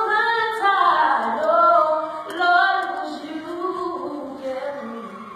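Female voices singing a gospel song, with long held notes that grow quieter and fade out near the end.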